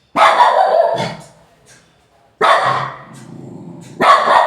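A dog barking loudly: three barks, spaced about two seconds apart, each dying away within a second.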